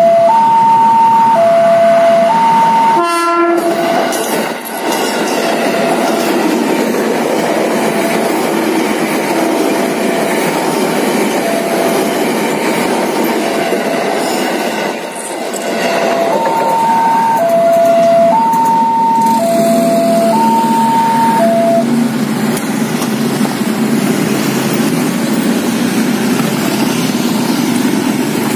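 Level-crossing warning alarm, an electronic two-note tone alternating high and low, sounding while a KRL electric commuter train rumbles past. A short train horn blast comes about 3 s in. The alarm stops about 22 s in, leaving the noise of the passing train.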